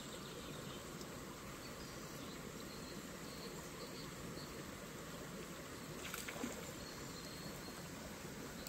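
Spinning reel being cranked on a retrieve, a faint steady whirr of the rotor and line, with a short click about six seconds in.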